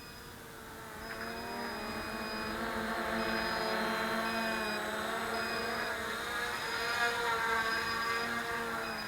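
HK FPV250 mini quadcopter's C20 motors and propellers whirring, the pitch wavering as the throttle shifts. It swells about a second in and eases off near the end.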